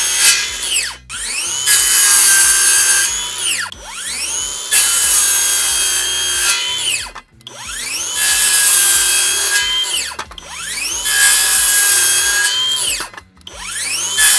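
Skil PWR CORE 20 XP brushless 7-1/4-inch cordless circular saw cutting a 1x board again and again, one cut about every three seconds. Each time the motor whine rises as the blade spins up, holds steady under the noise of the cut, then drops away quickly as the electric brake stops the blade.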